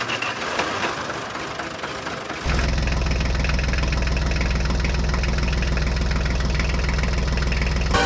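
Tractor engine sound effect: a softer, rough noise gives way about two and a half seconds in to an engine idling with a steady low chug.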